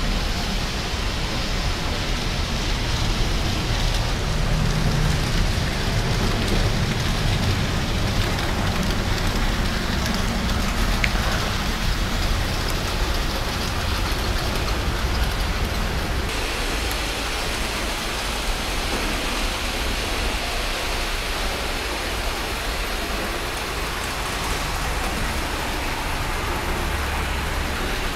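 Model trains running on the layout's track: a steady rumbling hiss of wheels and motors. About sixteen seconds in it turns thinner and brighter.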